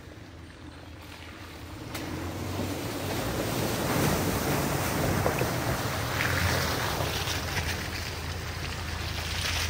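Off-road vehicle driving, its engine's low hum under a rushing noise that swells about two seconds in and stays loud.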